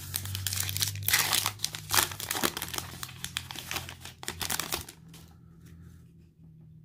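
Foil wrapper of a football trading-card pack being torn open and crinkled in the hands for about five seconds, then only faint handling as the cards come out.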